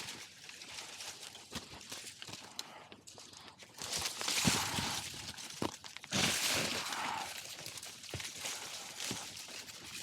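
Scattered knocks and scuffs, with two louder bursts of leafy rustling about four and six seconds in, as tree limbs and leaves are handled; no chainsaw motor is running.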